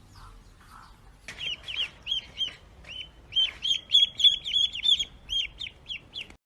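Bird chirping: a rapid run of short, high, arched chirps, about three or four a second, starting a little over a second in and loudest near the middle.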